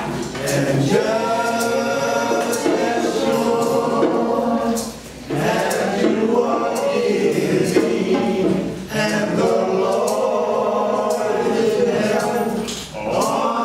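Church choir singing a gospel song in long held phrases, with short breaks about five and nine seconds in and again near the end.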